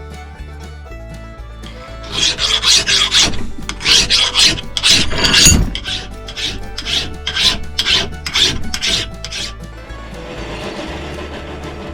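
Hand file rasping across a forged 1080 high-carbon steel axe head held in a vise, in a quick series of strokes about two a second, starting about two seconds in and stopping near the end. The filing cleans up the rough grinder marks before heat treatment.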